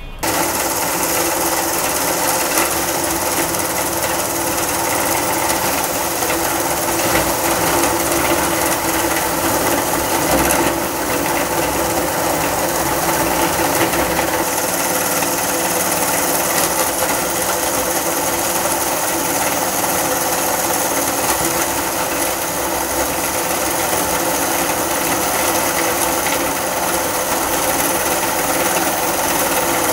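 Meat grinder running with a steady, dense grinding noise as it crushes wrapped hard lollipops, wrappers included, into a fine powder.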